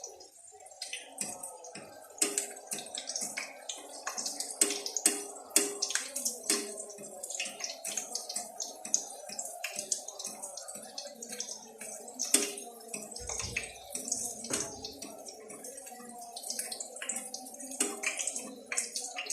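Collared and spotted doves frying in hot oil: a steady sizzle with many irregular sharp pops and crackles of spattering oil.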